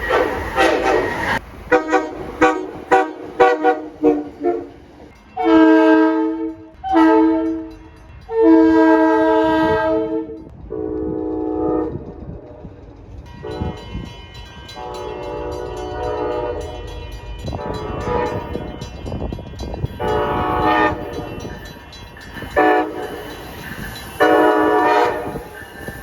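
Locomotive air horns sounding a multi-note chord in a series of blasts: a quick string of short toots, then two short blasts and a long one, then after a brief lull more blasts, some held and some short, near the end.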